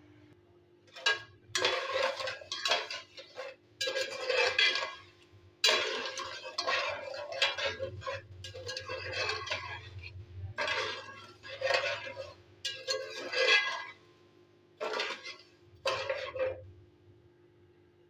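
Metal spoon scraping and clinking against a cooking pot in a string of irregular bursts, as in stirring, stopping a couple of seconds before the end.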